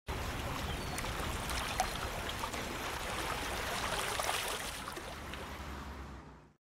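Steady rush of flowing water with small trickling ticks, fading out near the end.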